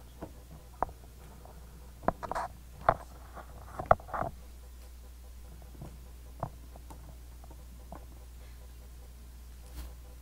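Scattered sharp clicks, taps and short rustles, busiest in the first half, over a steady low hum.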